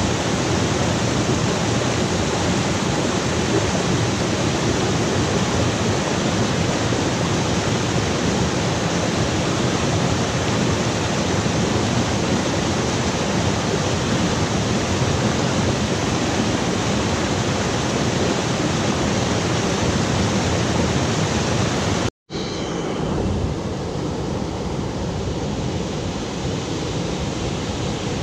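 Steady rushing of falling water, a dense even roar. It cuts out for an instant about 22 seconds in, then carries on a little quieter and duller.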